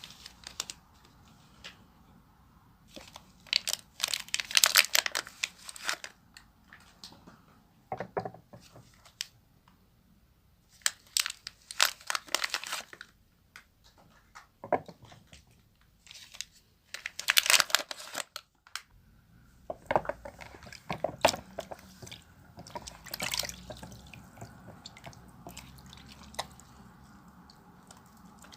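Wet bar of Royal soap being lathered in the hands: several bursts of crackly, squishing sounds a few seconds long, with short pauses between.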